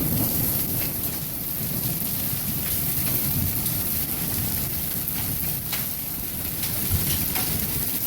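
Heavy rain and hail pouring down in a severe thunderstorm: a steady rush with scattered sharp ticks of hailstones striking, over a low rumble of thunder.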